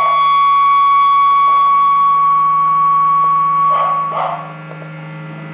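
Electric guitar feedback through a cranked Peavey Classic 30 tube amp: a steady high squeal held over a low drone, cut off about four seconds in with a couple of short scrapes. After that only the amp's mains hum remains.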